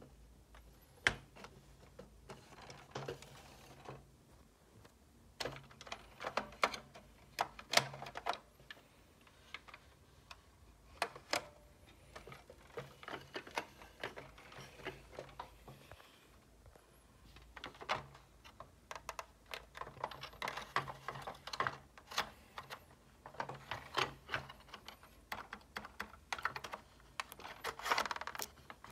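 Plastic bump-and-go toy car handled by hand: irregular clicks, taps and rattles of its plastic body and parts, coming in clusters with short pauses.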